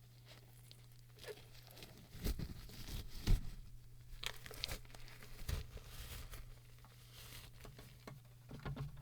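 Hands working over a plastic printer ink cartridge, making irregular clicks, crinkles and short rustles that start about two seconds in, over a faint steady low hum.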